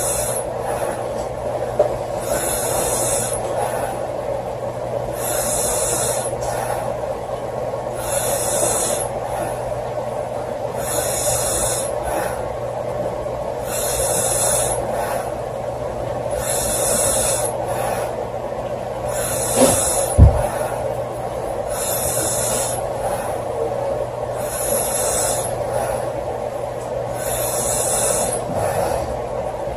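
A sleeping woman snoring, one breath about every three seconds, each with a hissing rush of air, over a steady background hum. A short thump about twenty seconds in.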